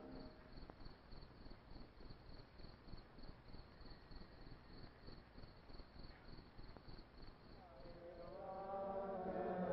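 Crickets chirping faintly in a steady pulse about three times a second, over a low hiss. Near the end, singing or chanting fades in.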